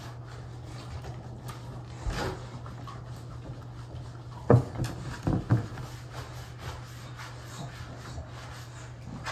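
A dog moving about in a bathtub while its soapy coat is rubbed, with a few knocks and thumps against the tub. The loudest thump comes about four and a half seconds in. A steady low hum runs underneath.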